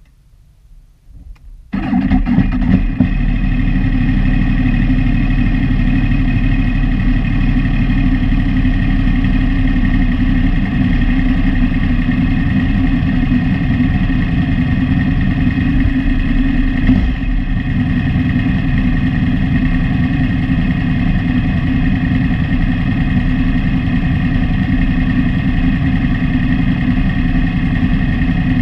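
Motorcycle engine starting, catching suddenly about two seconds in, then running loud and steady with no change in pitch.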